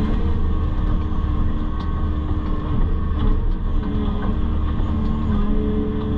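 Excavator's diesel engine running steadily under work, its pitch sagging and recovering about three seconds in, with a few light knocks.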